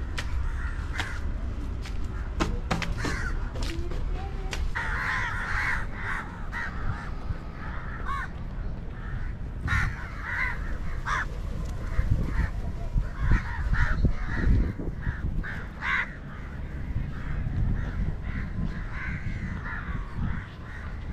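A flock of crows cawing, with many short calls repeating and overlapping throughout, over a steady low rumble.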